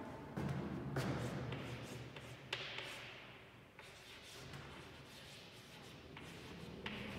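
Chalk writing on a chalkboard: a run of scratching strokes and sharp taps, louder in the first few seconds and fainter after that.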